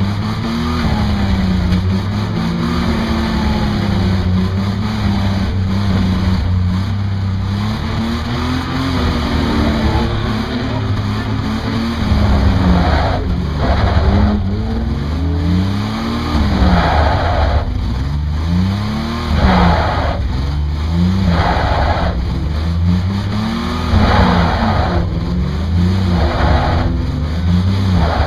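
Racing car engine heard from onboard, revving up and down again and again through gear changes and corners at speed. From about halfway, short higher-pitched squealing bursts come every second or two.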